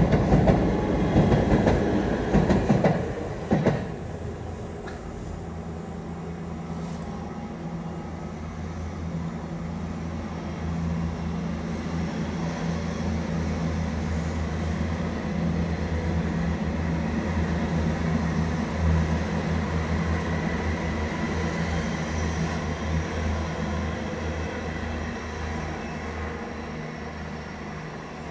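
South West Trains electric multiple unit passing close over the level crossing, its wheels clattering over the rail joints for the first four seconds or so. A second electric train then passes along the embankment: a steady low hum that swells and fades away.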